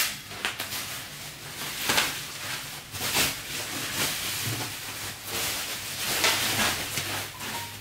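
Plastic bubble wrap rustling and crinkling as it is pulled off a gold metal table frame, in uneven surges.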